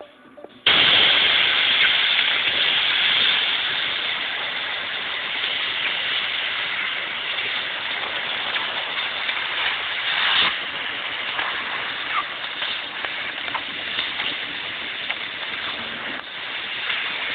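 Compressed air hissing steadily from an air tool held against a car's fender. It starts suddenly about a second in and swells briefly about ten seconds in.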